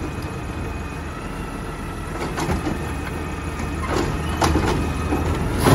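Mack automated side-loader garbage truck running its natural-gas engine as the hydraulic arm dumps a cart over the hopper, with a steady whine and several sharp bangs, the loudest near the end, as the cart is shaken out.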